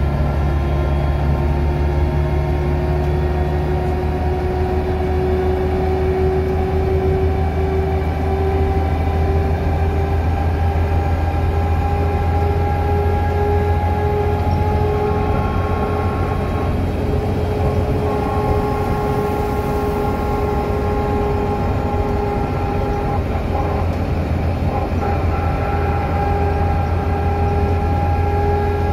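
A DAF DB250 double-decker bus heard from inside while running at speed. A steady low drivetrain drone sits under a loud, clear whine from the rear axle. The whine rises a little in pitch over the first several seconds, then holds steady.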